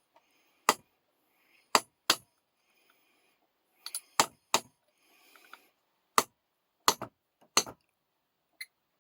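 Sharp metallic clinks and taps, about ten, spaced irregularly and each ringing briefly, from metal parts of a rusty Record No. 0 bench vise being worked on.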